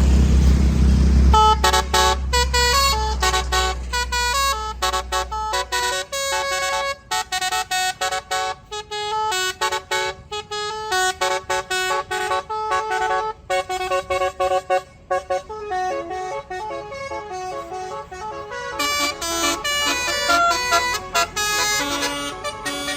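A bus's 'basuri' telolet horn playing a quick stepped melody of short honking notes, chopped on and off. A low engine rumble runs under it for the first several seconds, then fades.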